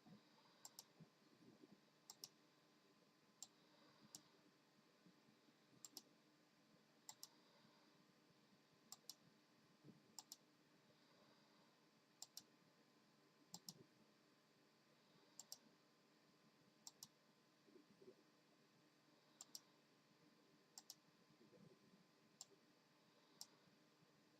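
Keys on a keyboard being pressed one at a time, a quiet click or pair of clicks every second or two at an uneven pace.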